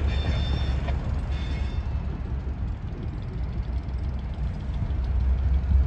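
Diesel engines of three Canadian Pacific locomotives running with a low, steady rumble as the units roll slowly past. Two brief high-pitched squeals come in the first two seconds.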